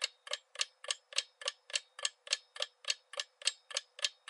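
Clock-ticking sound effect of a quiz countdown timer: evenly spaced sharp ticks, about three and a half a second, counting down the time to answer.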